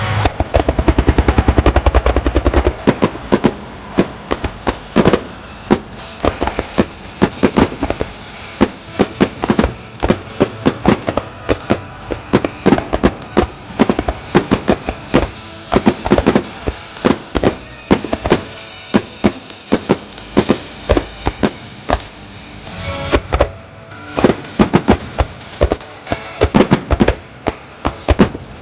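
Fireworks shells bursting in a display: a very rapid crackling volley for the first two seconds or so, then a long run of loud bangs, several a second, with a brief lull about 23 seconds in.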